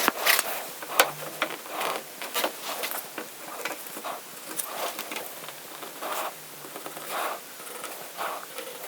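Hand work at the bench: rustling and scraping with many small clicks and taps as strips are stuck onto wooden pieces, with one sharper tick about a second in.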